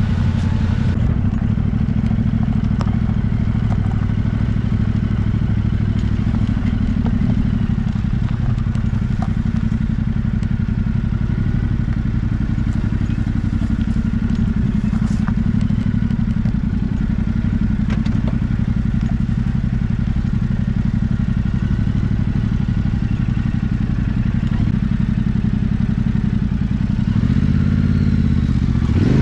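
Dual-sport motorcycle engine running steadily while riding a dirt trail, with scattered light knocks from the bike over the ground. The engine pitch rises near the end as the bike speeds up.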